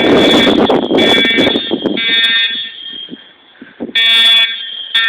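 School fire alarm horns sounding a harsh buzzing tone in the temporal-three evacuation pattern: three blasts about a second apart, a pause, then the next set begins. A burst of rushing noise sits under the first blast.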